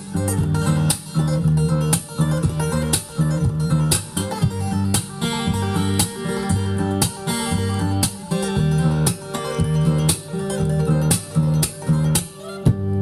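Guitar music with a steady strummed beat, played from a vinyl record on a Lehnert PS 907 turntable with a Shure M75-6S cartridge.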